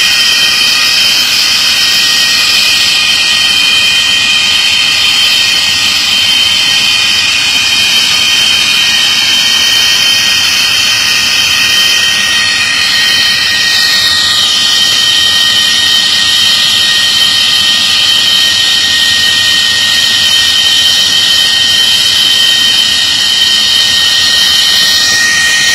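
MiG-23BN's Tumansky R-29B-300 turbojet running on a ground engine test: a loud, steady jet whine with several high-pitched tones over a rushing noise, one tone dipping slightly in pitch about halfway through.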